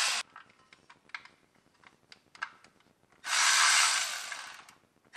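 Cordless electric driver with a T40 Torx bit running in short bursts to drive bolts home: one burst cuts off just after the start, another runs for about a second and a half a little past the middle and tails off. Light metal clicks and taps come in between.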